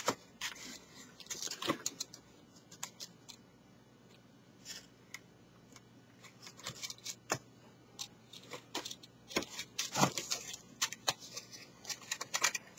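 Cardstock being folded, pressed and stuck down by hand: faint, irregular crackles and taps, busiest about a second in and again over the last few seconds.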